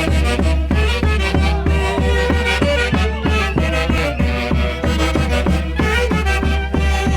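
A Peruvian orquesta típica plays a Santiago festival dance tune, with melody lines over a steady beat of about two strokes a second.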